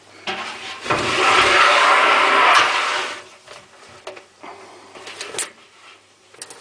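Broken Hotpoint Aquarius tumble dryer giving a loud scraping rattle for about two seconds, then a few light clicks and knocks.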